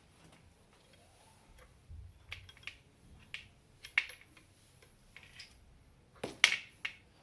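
Wire clamps being clicked onto the floor lamp's rod to hold its cord in place: scattered light clicks and taps, one sharp click about four seconds in and a louder cluster of clicks near the end.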